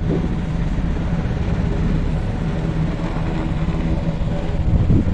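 A loud, steady low engine rumble.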